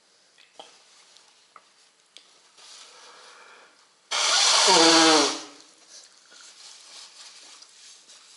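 A loud, harsh vocal burst from a person, lasting about a second and falling in pitch as it ends, some four seconds in. Light clicks of a metal spoon against a plastic food container come before it.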